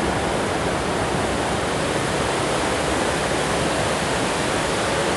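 Rain Oculus funnel waterfall, a large column of water pouring from a skylight bowl into the pool below, making a steady, unbroken rush of falling water.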